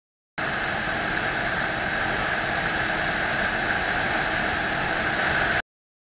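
Steady rush of wind and road noise from a cruiser motorcycle at highway speed, heard through a helmet-mounted camera. It cuts in abruptly about half a second in and cuts off abruptly near the end.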